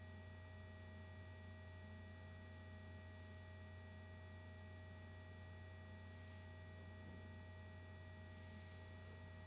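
Near silence: a steady low electrical hum with a few faint, thin, high steady tones, as from the recording equipment.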